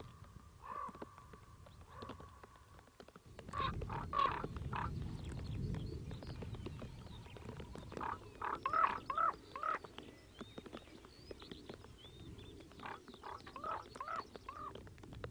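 Common ravens calling in short runs of rising-and-falling notes, four or five calls to a run, the clearest runs about eight and thirteen seconds in, over a low rushing noise.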